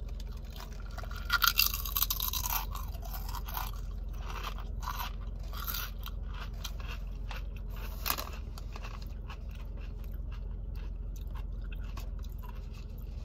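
Thick-cut, partially peeled kettle-style potato chip bitten and chewed close to the microphone: loud crisp crunches in the first few seconds, then quieter chewing that thins out after about eight seconds.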